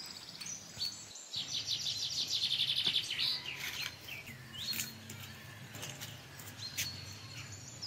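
Birds chirping: scattered short high calls, and a fast trill of rapidly repeated notes from about a second and a half in to about three seconds.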